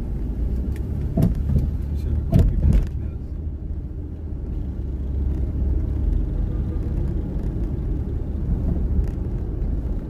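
Steady low rumble of road and engine noise inside a moving car's cabin, with a couple of brief knocks about one and two and a half seconds in.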